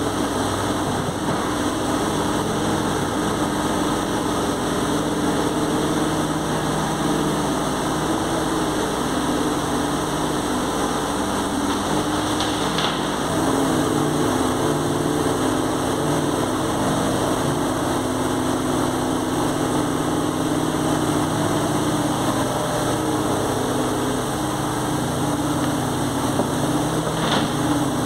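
JCB 803Plus mini excavator's diesel engine running steadily while the machine is driven on its tracks, with two brief high squeaks, one about halfway through and one near the end.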